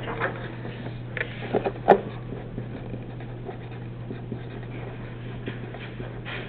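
Paper being handled, with a few sharp rustles in the first two seconds, then a pen writing on paper, under a steady low hum.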